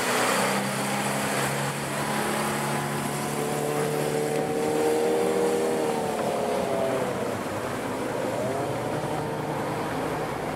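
Outboard motorboat engines running fast over open water, a steady engine hum over rushing wash and wind. The engine note slides down about six to seven seconds in, and another note rises about eight seconds in.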